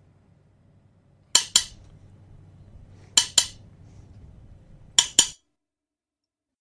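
Three pairs of sharp clinking clicks, about 1.8 seconds apart, over a faint low hum; the sound cuts off abruptly just after the third pair.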